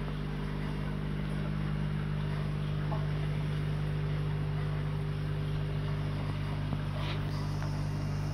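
A steady machine hum with several fixed low tones, unchanging throughout, with a few faint ticks.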